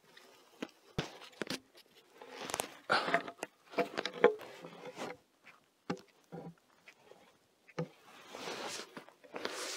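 Boots crunching and shuffling on dry pine needles and leaf litter, with a few knocks and scrapes as a heavy timber post is raised and stood upright on a stone footing.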